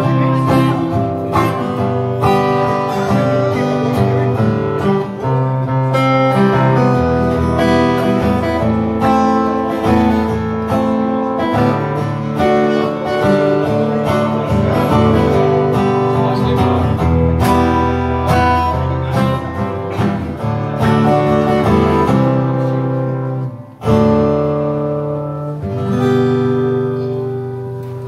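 Acoustic guitar strummed in a continuous run of chords, played live and amplified. The chords break off briefly about 24 seconds in, then come back.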